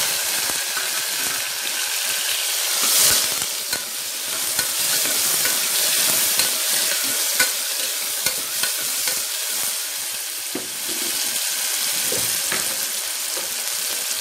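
Chopped small onions and tomatoes frying in hot oil in a pressure cooker, a steady sizzle that is loudest at the start, just after they go in. A metal ladle stirring them clicks and scrapes against the pot.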